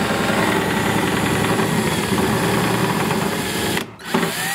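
Cordless drill running steadily as its bit bores a hole through the barn-door rail's mounting hole into the wooden wall. It cuts off suddenly near the end, followed by one short burst.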